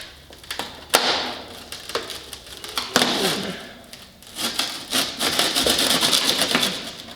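Hand work on an old truck cab: sharp knocks about one and three seconds in, then a long crunchy scraping rattle near the end.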